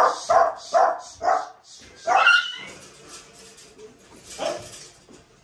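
A dog barking: four quick barks in a row, then a longer one about two seconds in, and a last, weaker bark after a pause.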